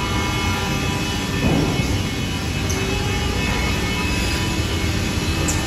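Steady drone of woodworking factory machinery running, an automatic defect-cutting cross-cut saw in operation among it, with a brief louder swell about a second and a half in.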